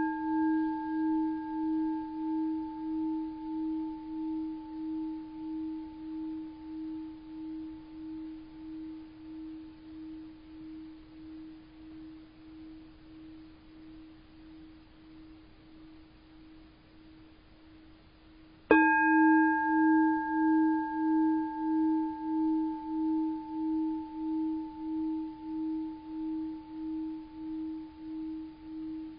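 Vintage Japanese orin bowl bell, 21.5 cm across, ringing and slowly fading with a steady wavering pulse in its tone. It is struck again about 19 seconds in and rings on.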